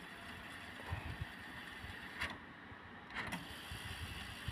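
Tascam 122 MKIII cassette deck rewinding: a faint, steady whir of the tape transport, with a couple of light clicks about two and three seconds in.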